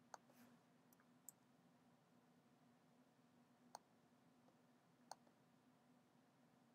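Near silence broken by four faint, sharp computer mouse clicks at uneven intervals: the pointer selecting a word and right-clicking it. A faint steady hum of room tone lies underneath.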